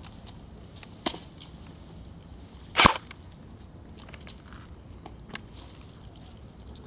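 Single airsoft gun shots: a few short, sharp cracks, the loudest about three seconds in, with fainter ones about a second in and near the end.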